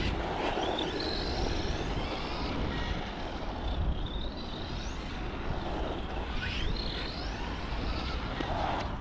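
Arrma Vorteks RC truck running on a 2S battery, its electric motor whining up in pitch several times as it accelerates, over a steady rush of tyre and wind noise.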